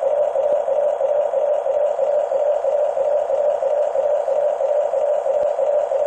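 Huina D9R radio-controlled bulldozer's electric drive motors and gearboxes running with a steady whirring drone that does not change.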